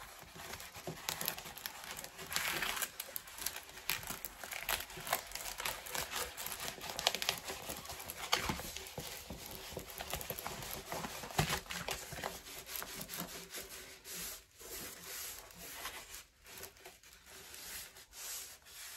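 A rolled diamond painting canvas being handled and rolled up, rustling and crinkling in an irregular run that thins out after about fourteen seconds.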